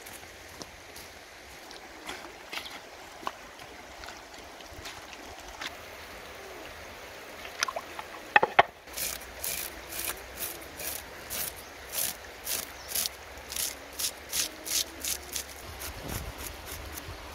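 A cleaver scraping the scales off a large carp in quick, even strokes, about two or three a second through the second half, over the faint trickle of a stream. Two sharp knocks just before the scraping begins are the loudest sounds.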